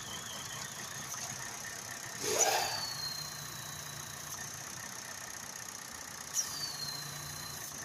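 Chevy Cruze engine idling roughly, with a steady high whistle; twice a sudden surge sets off a high tone that falls away over about a second. The rough idle comes with a check engine light and fuel trim and MAP sensor codes, which the owner blames on the intake manifold.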